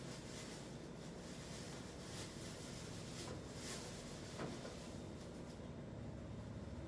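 Faint rustling and a few light clicks of someone handling things at a kitchen counter, over a soft hiss that fades out near the end.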